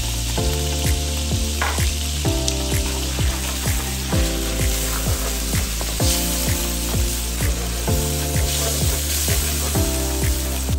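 Minced garlic sizzling in hot oil in a stainless steel wok while a spatula stirs it, with background music with a steady beat playing over it.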